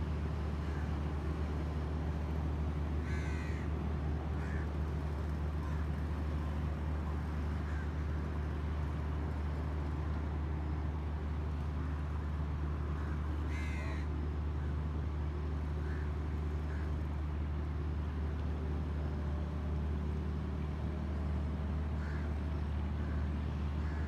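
Steady low drone of a vehicle engine, with two short harsh bird calls, one a few seconds in and another just past the middle.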